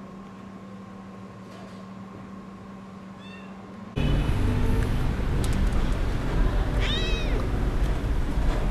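Young kitten meowing: a faint meow about three seconds in, then a louder meow about seven seconds in, over a sudden loud low rumble that starts about four seconds in.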